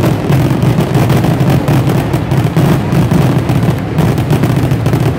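Fireworks grand finale: a dense, unbroken barrage of booms and crackling shells going off in rapid succession.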